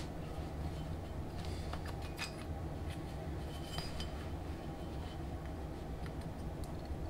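A few light metallic clinks of a steel hand tool handled and set down on a metal lathe's cross slide, over a steady low hum.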